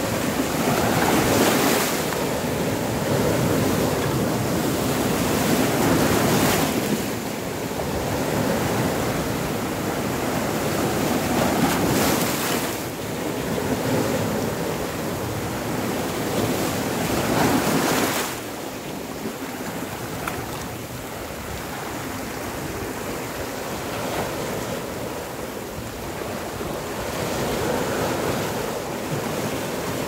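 Rough sea waves breaking over and washing around rocks on a rocky shore, foaming surf rushing in and draining back. Loud surges come every five or six seconds, then the wash turns quieter and more even about eighteen seconds in.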